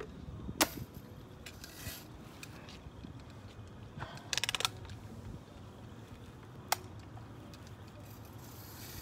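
A BB rifle firing with a sharp crack about half a second in; around four seconds in, a quick rattling run of clicks as the gun is cocked, then another sharp shot near seven seconds. A low steady rumble runs underneath.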